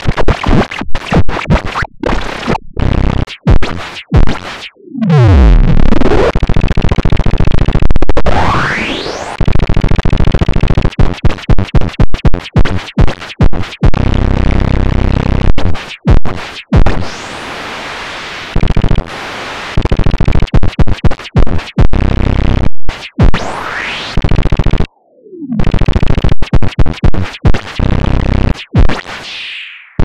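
Synthesized white noise filtered through a VCV Parametra parametric EQ, its frequency and gain swept by an LFO, chopped into rapid stuttering bursts. A few tones glide through it, sweeping down and up across the whole range.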